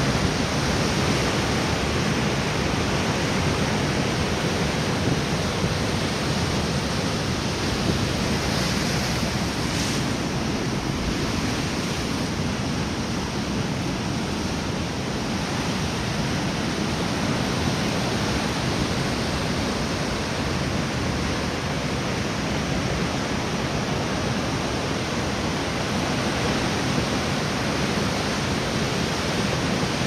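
Heavy North Sea storm waves breaking against and over a stone harbour pier: a continuous rush of surf and spray that holds steady throughout. Strong wind blows through it.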